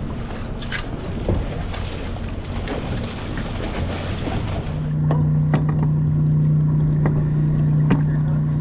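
Boat motor running with a steady low hum that grows louder and steadier about five seconds in. Before that, a rushing hiss and a few scattered knocks cover it.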